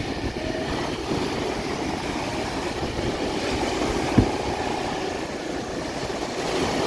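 Surf breaking and wind buffeting the microphone, a steady rushing rumble, with one sharp bump about four seconds in.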